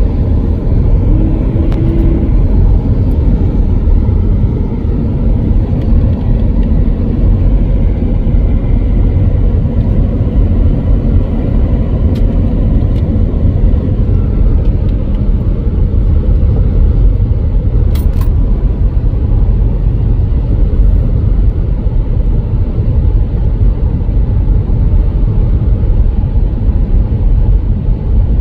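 Car driving on the road: a steady, loud low rumble of tyres and engine.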